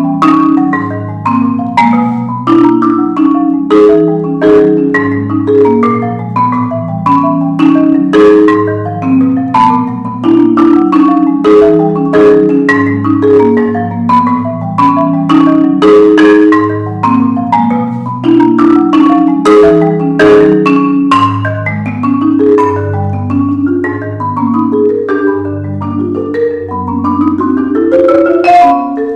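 Solo marimba struck with mallets, playing a continuous flowing pattern of low sustained bass notes under quicker notes higher up. Near the end the notes climb in a rising run.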